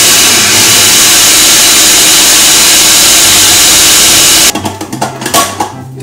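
Food processor running, its motor and blade whirring loudly through flour and dry ingredients, then switched off and stopping abruptly about four and a half seconds in.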